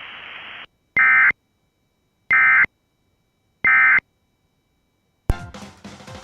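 Three short bursts of Emergency Alert System SAME data tones, each about a third of a second and evenly spaced with silence between: the end-of-message code that closes an alert. They come after a stretch of radio hiss that cuts off suddenly. About five seconds in, a sudden musical sound starts and fades.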